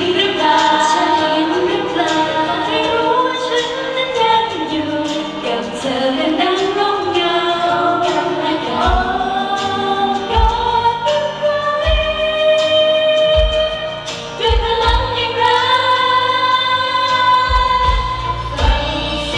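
Two female pop singers singing a song live into handheld microphones over instrumental backing. Low bass beats come in about nine seconds in.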